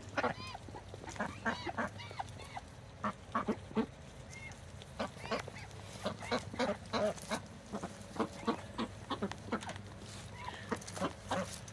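A flock of domestic ducks feeding together from a pan, bills dabbling and clicking in the feed, with many short soft quacks throughout.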